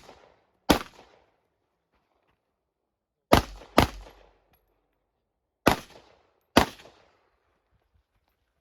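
Rifle shots fired during an IPSC rifle stage: five sharp shots with pauses between groups, one shot, then a quick pair about half a second apart, then two more about a second apart, each with a short fading echo.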